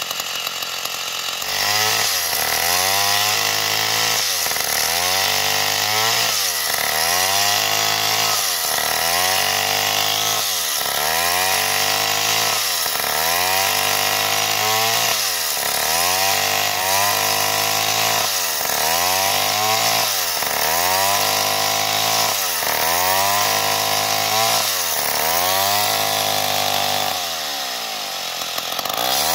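Stihl MS 070 two-stroke chainsaw running at full throttle while cutting lengthwise through a log. The engine note dips under load and recovers about once a second throughout the cut. Near the end it eases off briefly before picking up again.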